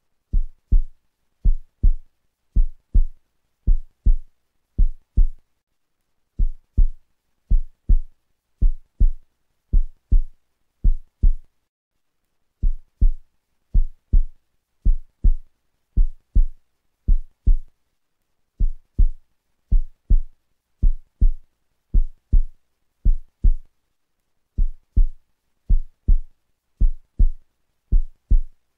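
Heartbeat sound effect: low double thumps, lub-dub, about once a second, with a short pause after every five beats.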